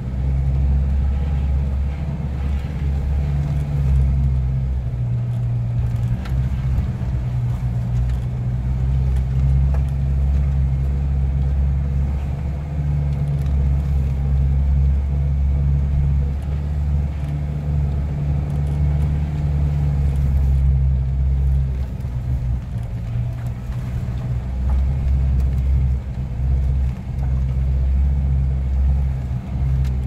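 Hyundai Galloper SUV driving slowly over a rough dirt track, heard from inside the cabin: a deep, steady engine and road rumble.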